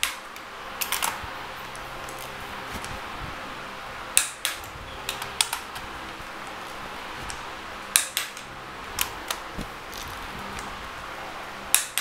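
Click-type torque wrench clicking as it reaches its set torque on the cylinder-head stud nuts of a Toyota 4A-GE engine, a sharp click about every four seconds with a few lighter ticks after each as the wrench is ratcheted back.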